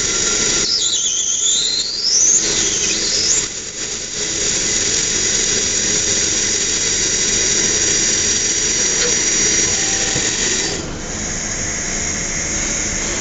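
High-speed spindle of a homemade thermal friction-drilling CNC machine running with a steady high-pitched whine. From about one to three and a half seconds in, a squeal sweeps down and back up in pitch as the drilling tool rubs into the metal, and near the end the whine eases a little.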